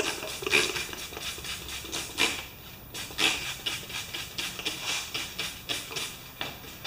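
Hand trigger spray bottle squirting soapy water onto a compressor's wheelbarrow tire to find an air leak: many short hissy sprays in quick succession, a few a second.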